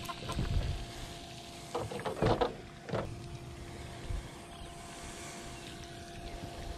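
A few knocks and thumps, the loudest about two seconds in, from a hooked fish flopping on wooden dock boards as it is landed and handled, over a faint steady hum.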